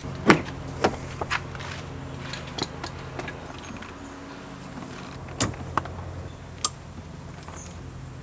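A Chevy Silverado door latch clicks as the door is opened. Scattered clicks and knocks follow as a throttle controller's plug-and-play harness is fitted under the dashboard, over a steady low hum.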